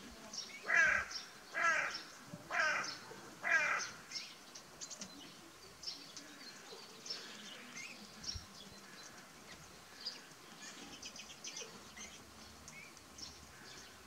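A crow cawing four times, about a second apart, each caw harsh and short. Faint high chirps of small birds go on throughout.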